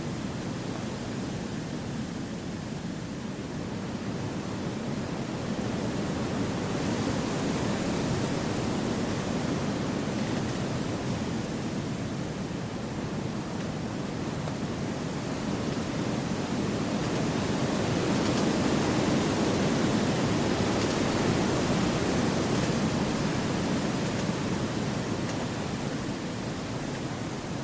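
Wind blowing through forest trees: a steady, even rushing that swells gently about a quarter of the way in and again just past the middle.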